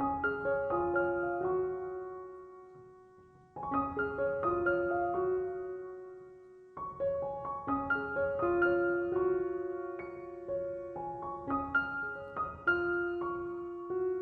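Soft piano music playing slow phrases of held notes that die away, fading to a pause twice before the playing resumes.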